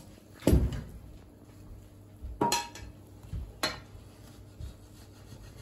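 Wooden spatula knocking against a large metal cooking pot while turning over rice, a few sharp knocks with the loudest about half a second in.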